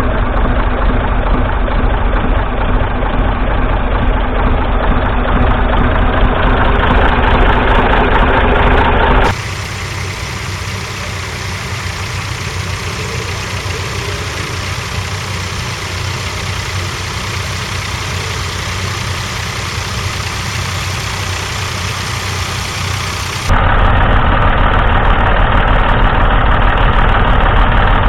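Classic farm tractor engines running steadily while ploughing. The sound cuts abruptly about nine seconds in to a quieter, thinner engine sound, then cuts back near the end to a louder, deeper one.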